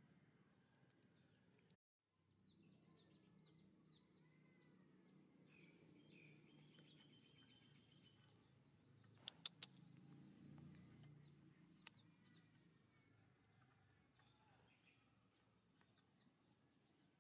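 Faint, rapid high bird chirps, many short falling notes repeating over a low steady background rumble, with a few sharp clicks about halfway through.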